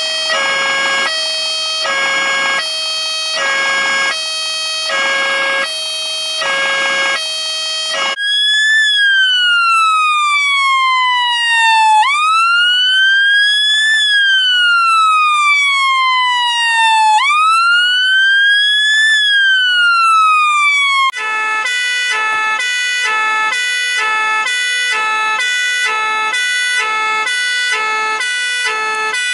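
Fire engine electronic siren cycling through its tones. It sounds a two-tone hi-lo for about eight seconds, then a slow wail rising and falling over several seconds at a time. About 21 seconds in it cuts to a faster, lower-pitched two-tone.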